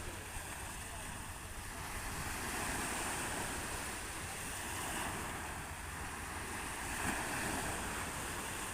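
Steady wind buffeting the microphone over the wash of the sea.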